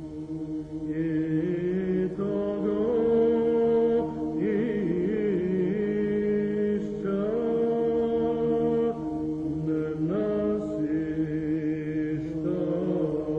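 Background music of slow chanted singing over a held drone, the melody moving in phrases of a few seconds.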